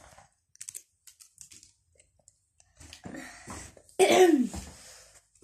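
A person coughs once about four seconds in: a sudden harsh burst with a falling voiced tail. Before it come faint scattered clicks and rustling.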